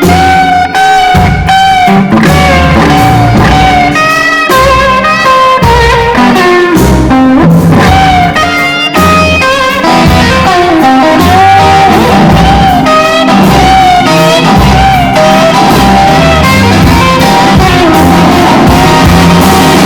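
Live rock band playing an instrumental passage: an electric guitar lead with bent, wavering notes over bass and drum kit.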